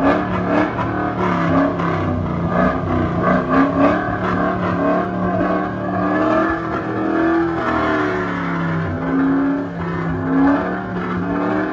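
Cadillac CTS-V's V8 running and being revved, its pitch swelling up and dropping back over and over in short throttle blips.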